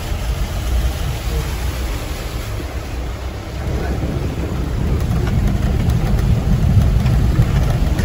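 Off-road jeep's engine running, heard from inside the cabin, as it drives through a shallow river crossing. The engine grows louder about halfway through as the jeep pulls out of the water onto the gravel track.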